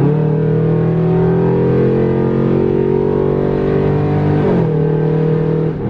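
Car engine fitted with long-tube headers pulling under acceleration, heard from inside the cabin as a loud, steady exhaust drone whose pitch climbs slowly. About four and a half seconds in the pitch falls sharply, then holds at the lower note.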